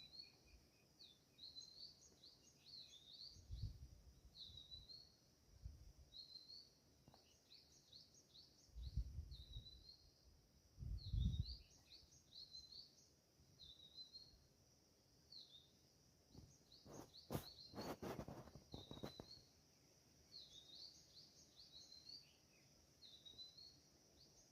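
Small songbirds chirping faintly: quick, high, repeated chirps again and again. A few low thumps come through, the loudest about eleven seconds in, and there is a short cluster of sharp clicks about two-thirds of the way through.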